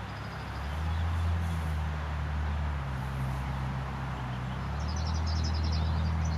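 A large engine running with a steady low drone that swells about a second in and again near the end, with quick high bird chirps near the end.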